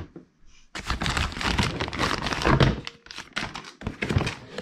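Packing material rustling and crinkling as items are lifted out of the compressor's startup-kit box, with a thunk at the start.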